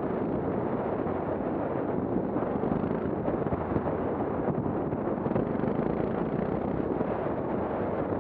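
Motorcycle running while riding a dirt forest track, its engine noise mixed with a steady rumble of wind on the microphone.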